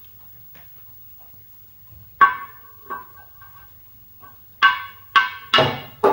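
A neodymium magnet knocking against the glass face of a CRT TV screen: about six sharp knocks, each with a brief ringing tone, the first about two seconds in and the rest coming quicker near the end.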